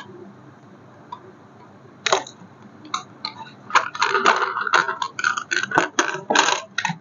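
Handling noise from a plastic toy car and its packaging: a single click, then from about two seconds in a dense, irregular run of clicks and rattles.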